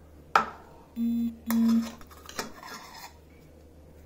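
A steel saucepan is set down on a kitchen counter with one sharp clack, followed by lighter clinks and knocks of the pan near the plastic mould. Between them come two short, steady buzzes, each under half a second.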